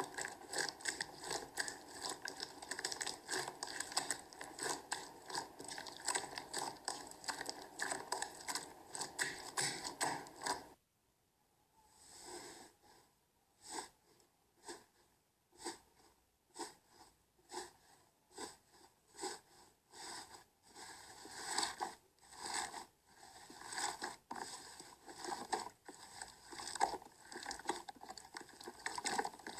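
Slime being squeezed and worked by hand, giving rapid sticky clicks and pops. After a sudden cut about a third of the way in, slower separate squelches follow and grow denser again near the end.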